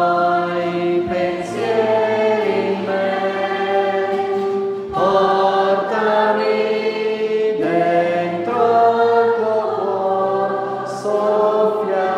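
Choir singing slow, sustained chords, each held for a second or two before moving to the next.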